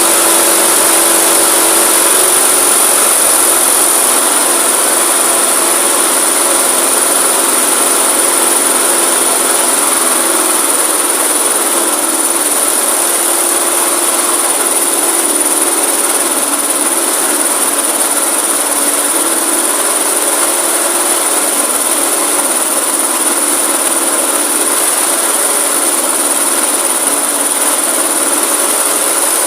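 Briggs & Stratton 500-series engine on a walk-behind rotary lawn mower running steadily at high speed, its note shifting slightly a few seconds in and again about ten seconds in. It is running with the air filter off while its throttle linkage is reset to bring down revs that are set too high.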